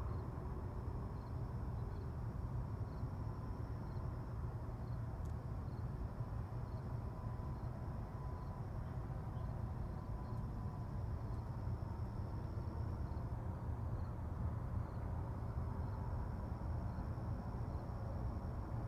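Outdoor ambience: a steady low rumble with a faint, thin high insect trill over it that drops out briefly past the middle and returns.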